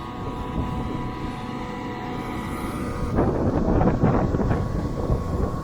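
Generator engine running steadily with a constant hum. From about three seconds in, gusts of wind buffet the microphone in loud rumbling surges.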